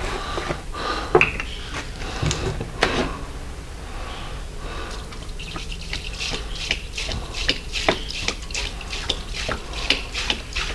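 Liquid poured from a large plastic jug into the stainless tank of an ultrasonic cleaner. A few knocks from handling the jug come first, then from about five seconds in the pour runs in uneven spurts and splashes.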